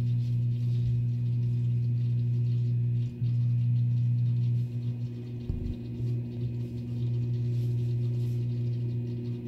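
Aquarium water circulation pump humming: a steady low electrical hum that falters briefly about halfway through.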